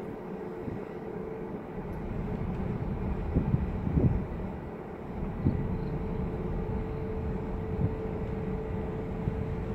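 A car driving slowly, heard from inside: steady engine and tyre rumble with a constant low hum. A few low thumps come about three and a half to five and a half seconds in.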